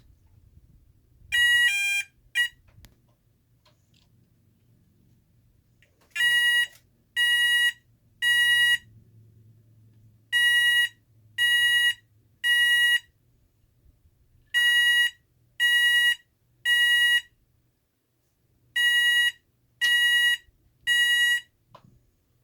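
Federal Signal SLM800R electronic sounder, wrapped in t-shirts to muffle it, giving two short pulses of one tone. After a pause of a few seconds it sounds a different tone in groups of three half-second pulses, with the groups about four seconds apart. That three-pulse rhythm is the temporal-three fire evacuation pattern.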